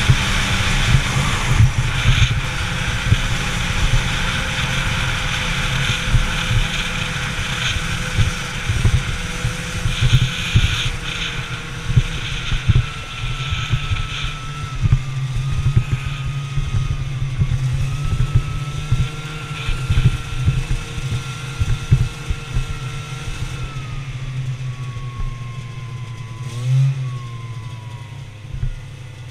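Snowmobile engine running at a steady pitch, recorded by a helmet-mounted camera, with rushing wind and track hiss and frequent knocks as the machine rides over bumpy snow. About 24 seconds in, the engine pitch drops as the sled slows. There is a brief rev near the end.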